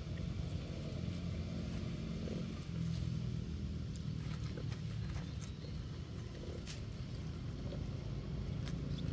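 Steady low outdoor rumble with a few faint scattered clicks and rustles.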